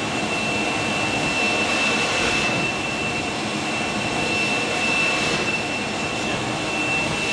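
A high-speed top-loader pick-and-place robot with a suction gripper running in cycles. It makes a steady rush of machine and air noise with a constant high-pitched whine over it.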